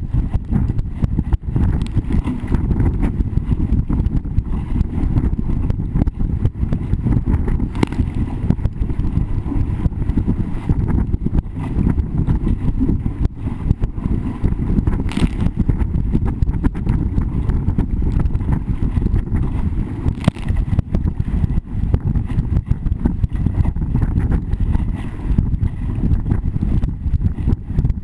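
Wind buffeting a boat-mounted camera's microphone while a sailing dinghy's hull slaps through choppy water: a steady low rumble broken by frequent knocks, with a few sharper knocks.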